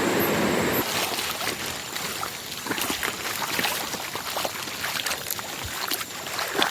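Water in a river: a steady rush that cuts off about a second in, then scattered small splashes and knocks.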